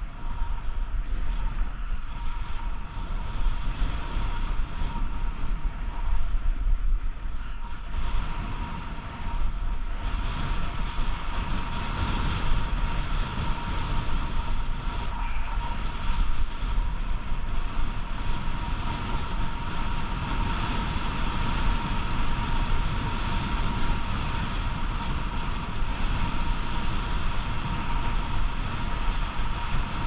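A snowboard's base and edges scraping and hissing across groomed snow, with wind rushing over the microphone as the rider descends. It grows hissier from about ten seconds in.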